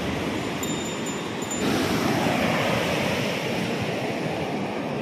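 Sea surf breaking and washing up a sandy beach, a steady rushing noise that grows louder about a second and a half in.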